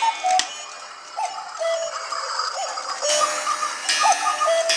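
Cuckoo clocks calling the hour: repeated two-note cuckoo calls, high then low, about one every second and a half, over the steady ticking of the clocks.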